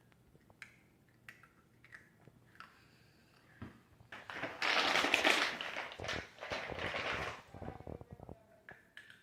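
Chocolate chip bread being bitten and chewed close to the microphone: small mouth clicks and smacks, then from about four seconds in a loud crackly crunching that lasts about four seconds.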